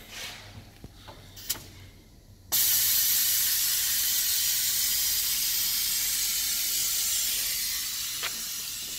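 Compressed air hissing out of the pneumatic system of a Vitap Alfa 27T multi-spindle boring machine, starting suddenly about two and a half seconds in and then slowly easing off. Before it, a few light clicks of handling.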